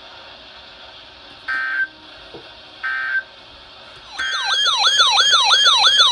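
Two short electronic beeps about a second and a half apart. From about four seconds in, a loud electronic siren-style alert tone warbles rapidly, sweeping up and down about three times a second.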